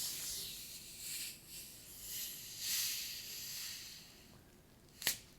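A soft, uneven hissing rustle that swells and fades for about four seconds, then a single sharp click near the end.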